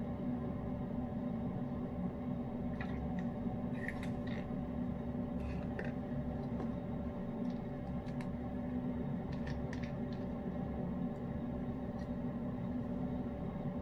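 Steady mechanical hum, like a fan or small appliance running, with a few faint light clicks and taps scattered through the middle.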